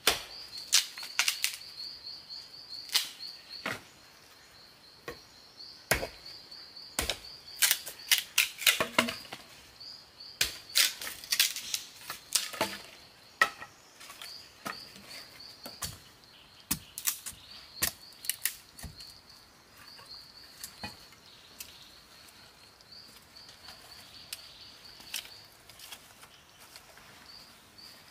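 An irregular series of sharp knocks and cracks, thickest in the first half, over a steady high pulsing trill from insects.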